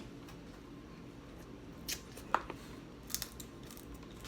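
Crab shells being cracked and picked apart by hand during eating: a few short, sharp snaps and clicks, the loudest about two and a half seconds in, then a quick cluster of small clicks about a second later.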